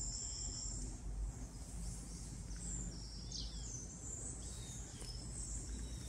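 Insects trilling in a steady high band, with a few short falling bird chirps about three seconds in, over a low rumble.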